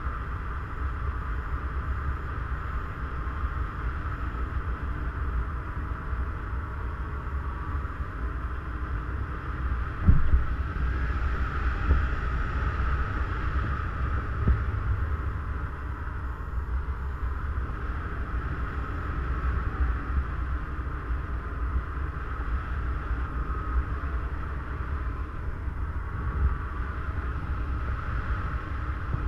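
Wind from a paraglider's flight rushing over the camera microphone: a steady low rumble with a hiss above it, and a brief louder buffet about ten seconds in.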